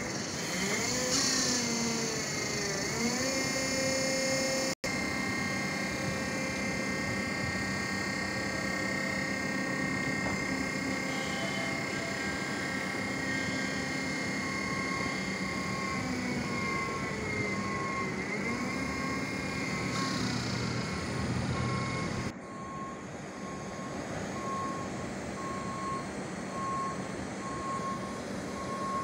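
ACE AF15E battery-electric forklift's electric motors whining, the pitch rising and falling as the mast lifts and the truck drives. From about halfway in, the forklift's warning beeper sounds a steady run of beeps.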